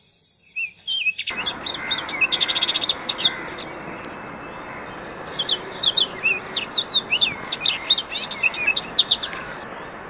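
Many birds chirping in quick, short calls and little trills, over a steady background hiss that fades in about a second in.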